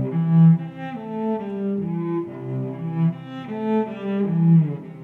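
Background music: a melody of held notes on low bowed strings, moving from note to note about every half second.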